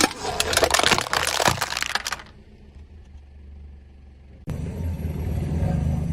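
Something brittle cracking and crunching under a car's tyre for about two seconds, then the car's engine running low and steady, louder from about four and a half seconds in.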